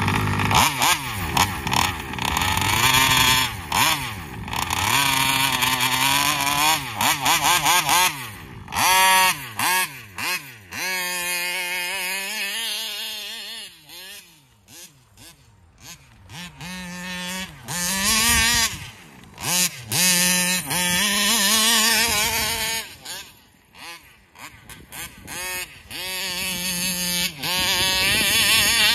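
Taylor 35cc reed-valve two-stroke engine in a gas-powered RC car, revving hard as the car is driven. Its pitch rises and falls again and again, and the sound fades as the car runs away, then swells as it comes back.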